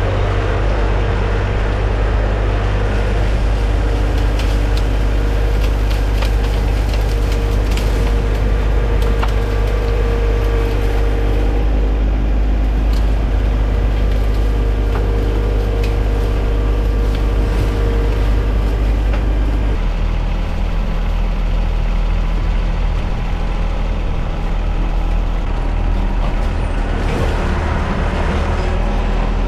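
John Deere 1025R sub-compact tractor's three-cylinder diesel engine running steadily under load while pushing branches, with a few faint sharp clicks. The engine note changes about twenty seconds in.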